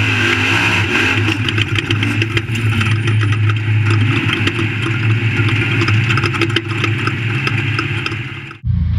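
Off-road race truck engine running hard and steady, with rapid clicks and rattles over the top; the sound cuts off abruptly near the end.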